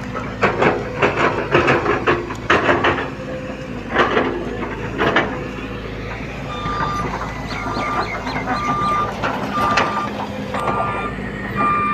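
Reversing alarm of a construction vehicle beeping about once a second, a single high tone, starting about halfway through, over the steady low hum of its diesel engine. A series of sharp knocks comes in the first half.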